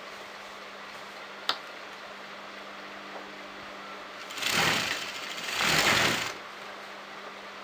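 Sewing machine stitching lace onto fabric in two short runs past the middle, over a steady low hum, with one sharp click early on.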